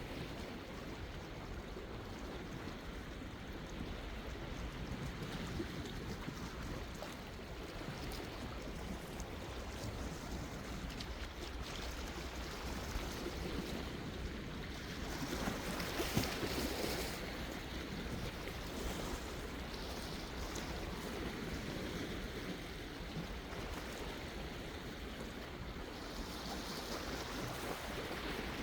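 Sea waves washing in on the shore in a steady rush, with one bigger wave breaking about halfway through.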